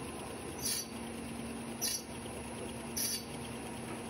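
Suga HSG-PB-4C-1100 automatic folder gluer running, carrying carton blanks through its belts and pressure roller. It gives a steady mechanical hum with a short, high hissing squeak about once a second.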